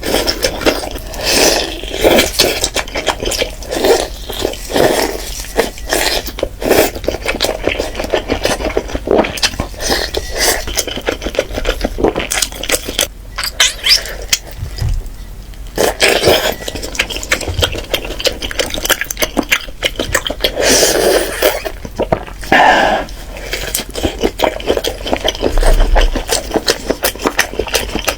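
Close-miked eating sounds: chewing and biting, with short clicks and scrapes of dishes and utensils.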